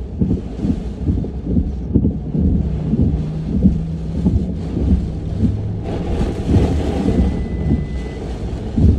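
Hurricane wind gusting and buffeting the microphone in low, irregular surges. About six seconds in, a brighter hiss joins it.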